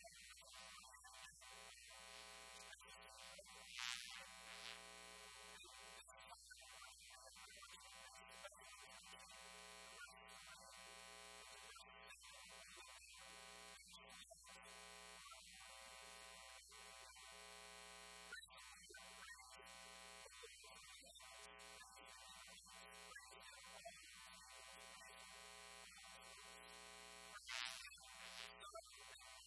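Near silence filled by a faint, steady electrical buzz: mains hum with many overtones on the audio line. Two brief faint hisses come about four seconds in and near the end.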